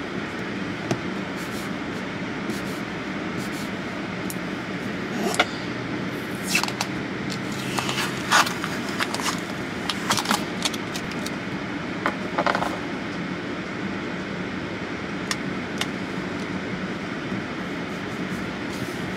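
Scraping and crinkling at the inside of a car windshield as a vinyl registration sticker is peeled and pressed into place by hand, in several short bouts over a steady car-interior hum.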